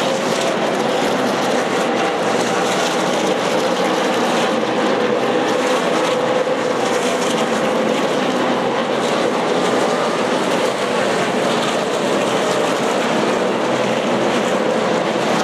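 A field of NASCAR V8 stock cars running laps on a short oval, their engines blending into one loud, steady drone.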